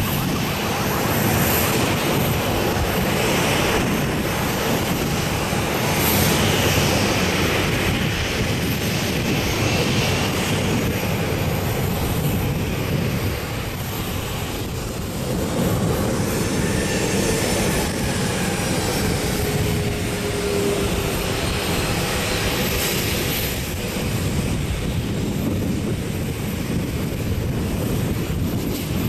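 Steady jet whine and rush from a parked Boeing 737-800, typical of its auxiliary power unit running with the main engines shut down.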